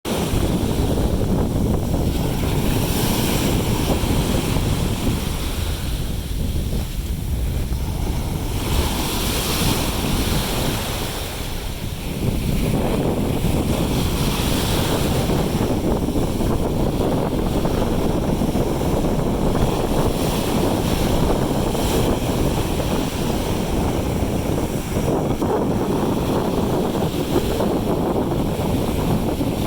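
Heavy wind buffeting the microphone over steady rushing water and spray from a jet ski moving across the sea, with a slight easing a few seconds in before it builds again.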